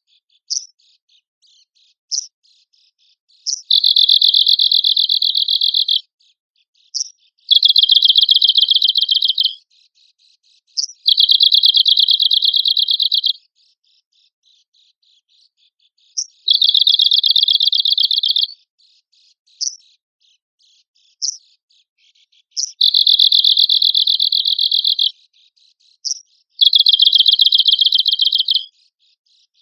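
Arctic warbler singing: six fast, dry trills, each about two seconds long, with short sharp single call notes in the gaps between them.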